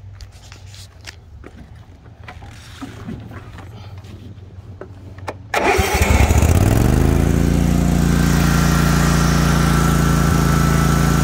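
Toro TimeCutter SS5000 zero-turn mower's Kawasaki engine cranking and catching about five and a half seconds in, then settling to a steady, smooth run. Light clicks and knocks come before the start.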